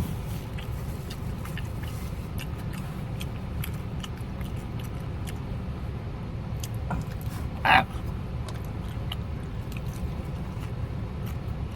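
Someone chewing and biting into crispy fried chicken, with faint crunchy clicks scattered throughout, over a steady low outdoor rumble. A brief voice-like sound stands out about three-quarters of the way through.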